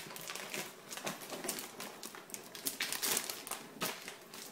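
Black plastic shipping bag crinkling and rustling in an uneven run of crackles as it is pulled open and cardboard product boxes are slid out of it.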